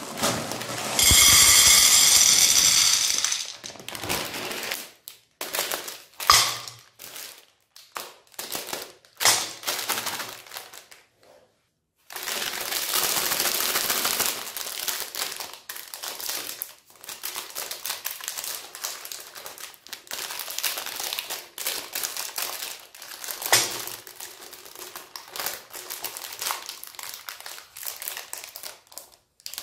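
Shiny plastic Magnum ice cream bar wrappers crinkling and crackling as they are handled, peeled and torn open, in irregular bursts with short pauses. About a second in there is a loud, even rasping sound lasting about two seconds.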